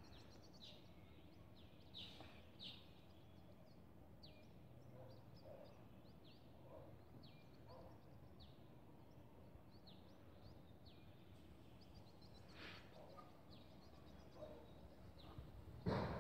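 Faint outdoor background with bird chirping: short, high chirps that slide down in pitch, about one or two a second. A louder burst of sound comes right at the end.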